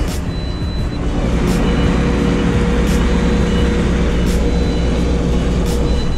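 Semi-truck's diesel engine running steadily, with a sharp click about every second and a half and short faint high beeps now and then.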